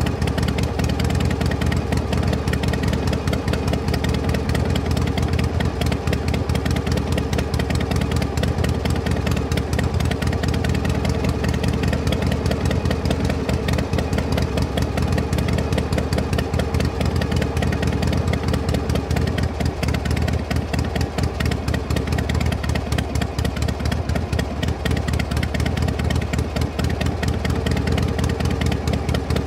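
A vehicle engine idling steadily, with a fast, even firing beat.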